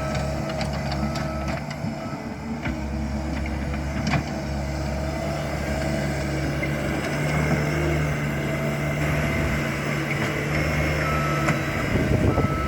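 Diesel engine of a heavy construction machine running steadily at work. Its back-up alarm beeps about a second in and again near the end, with a few metal clanks between.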